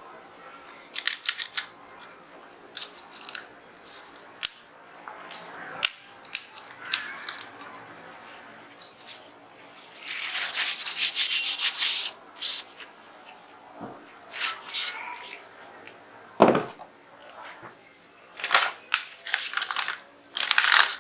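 Metal parts of a Zigana 36 9mm pistol being handled and fitted together during reassembly: scattered sharp clicks and taps, a stretch of rubbing about ten seconds in lasting about two seconds, and a dull knock a few seconds later.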